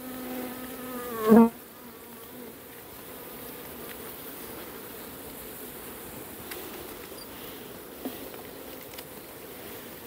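Honeybees buzzing around an open hive, a steady hum. About a second in, a single bee flies close past the microphone, loudest and briefly bending up and down in pitch. A few faint clicks later on.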